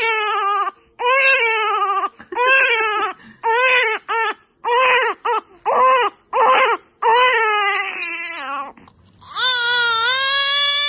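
Newborn babies crying: a run of short, repeated wails about one a second, then after a brief pause a second newborn's longer, held cry.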